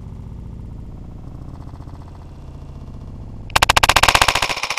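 Rifle shot played back slowed down: a low rumble, then about three and a half seconds in a sudden loud blast that stutters in a fast, even flutter and rings on for about two seconds before fading.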